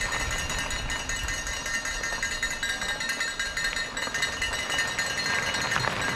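Mountain bike ridden up a rough trail climb, the bike rattling steadily, with a metallic ringing throughout.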